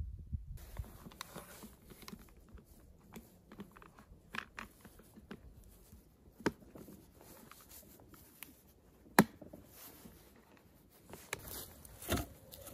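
Camp cookware being handled: small clicks and knocks of an enamel food carrier and its lid on a wooden table, with one sharp click about nine seconds in the loudest. Near the end, dry sticks knock together as they are gathered.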